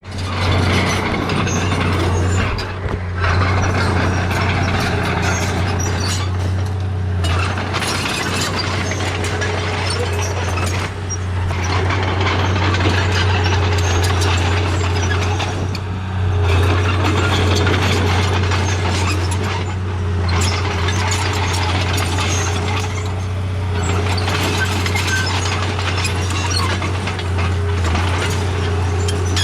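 Remote-control bulldozer running: a steady low hum with mechanical clattering from its gears and tracks, easing off briefly every few seconds.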